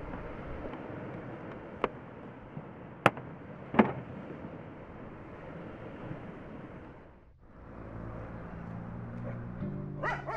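Steady outdoor background noise with three sharp knocks in the first four seconds. The noise drops out briefly a little past the middle, then returns with low steady tones, and music begins near the end.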